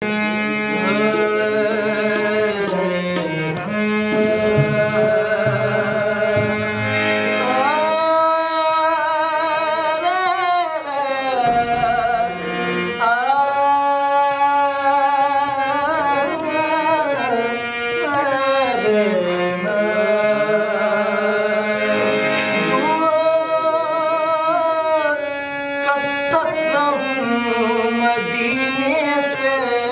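Qawwali: a man sings long, wavering, ornamented held notes over a harmonium playing sustained accompanying notes.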